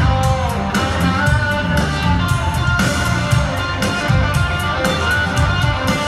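Live country-rock band playing loud in an arena, an electric guitar out front over a steady drum beat.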